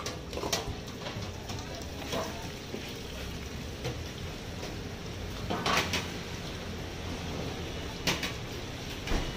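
Stainless steel bowls and a steel tray clanking and knocking as they are picked up and set down, a handful of separate clatters with the loudest about six seconds in, over steady background noise.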